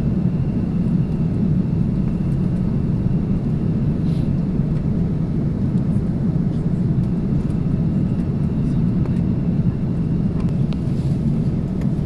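Steady low rumble of engines and airflow inside the cabin of an Airbus A330-300 on final approach with flaps extended, with a faint high whine that stops about ten seconds in.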